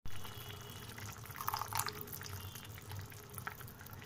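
Diced potatoes bubbling in their cooking water in an aluminium kadai, with small pops and crackles as a wooden spatula moves through them.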